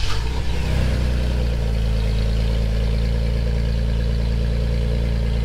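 2022 Toyota Tacoma engine just after start-up, breathing through a new MBRP aluminized-steel turn-down cat-back muffler: the revs settle within the first second or so into a steady idle.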